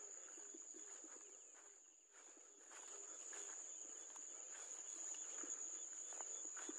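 Faint, steady high-pitched chorus of crickets and other insects, with faint scuffing footsteps on a dirt path.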